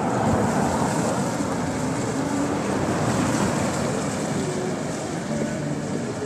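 Steady rush of street traffic noise, swelling about a second in and slowly easing.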